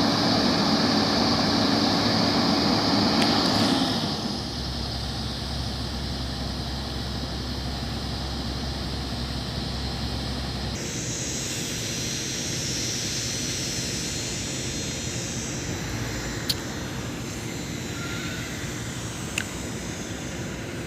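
Heavy construction machinery running, an excavator and dump truck engine noise that drops abruptly about four seconds in and changes character again near the middle, with two sharp clicks near the end.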